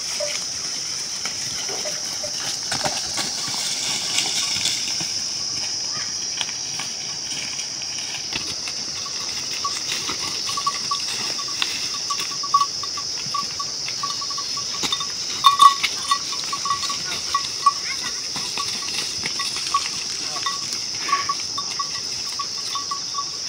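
Outdoor insect ambience: a steady high-pitched drone, joined about ten seconds in by a quick, repeated chirping that goes on to the end.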